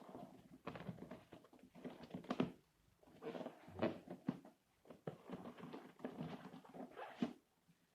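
Hands unpacking a board game: cardboard, paper and plastic components rustling and bumping, with short sharp knocks about two and a half seconds in and near the end.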